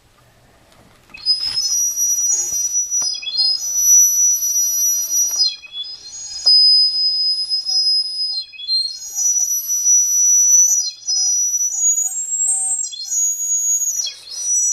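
A shrill, very high whistle in a series of long held notes, each about two seconds long and ending in a quick downward slide. It starts about a second in.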